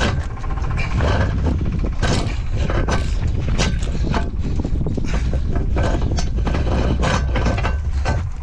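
Irregular metallic clanks and knocks of hand work with tools and metal parts, over heavy wind rumble on the microphone.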